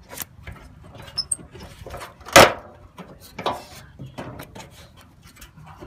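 Irregular clicks, rattles and knocks of a car fender being worked loose by hand after its bolts are out, with one loud knock about two and a half seconds in and another about a second later.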